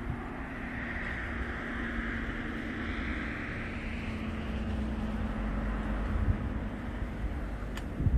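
Passing road traffic: engine rumble and tyre noise that swell over the first few seconds and slowly fade, over a steady low hum.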